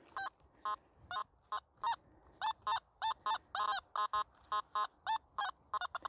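Nokta Makro Simplex metal detector giving a string of short mid-pitched beeps, about three a second, some bending slightly in pitch, as the coil is swept over ground full of metalworking slag that sets it off.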